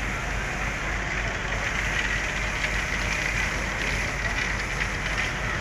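Diesel locomotive idling, a steady engine drone with no change in pitch.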